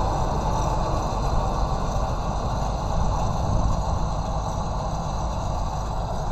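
Ursus 11054 tractor running steadily as it pulls a round baler some way off, under a steady low rumble of wind on the microphone.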